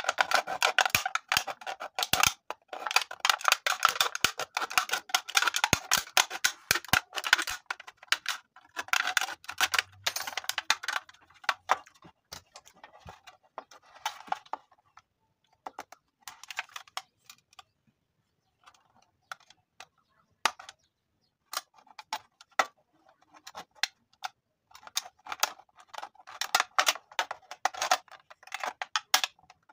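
Thin aluminium beer can being pierced and cut with a small blade: dense runs of rapid crackling clicks as the metal gives. The clicks thin out to scattered single ones in the middle and pick up again near the end.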